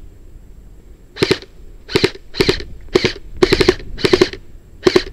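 Airsoft gun fired close by in about seven short bursts of a few shots each, starting about a second in, each shot a sharp crack.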